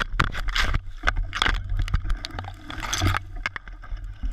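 A mountain-bike crash in woodland undergrowth: an irregular run of knocks, scrapes and rustling as the rider and the camera go down through leaves and branches, over a steady low rumble.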